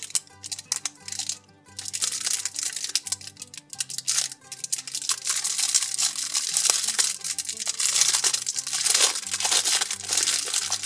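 Clear plastic film wrapping crinkling and crackling in irregular bursts as hands tear it open and peel it off a small jar, over background music.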